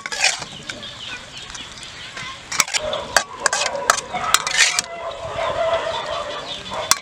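Metal spoon clinking and scraping against an aluminium pan and a china plate while fish is served, with a quick run of sharp clinks in the middle. Chickens cluck in the background.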